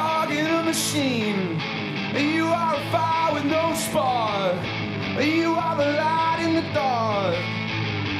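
Indie rock band playing live: electric guitars, bass and drums at a steady loud level, with a singer's voice sliding between notes over them.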